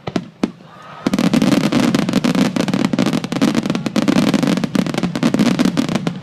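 Aerial fireworks: two sharp bangs, then from about a second in a dense, continuous crackle of many rapid bangs and pops, as in a mass barrage of shells.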